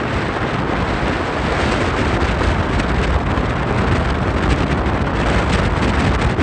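Wind blowing across the microphone: a loud, steady rushing noise, heaviest in the low end, with no distinct events.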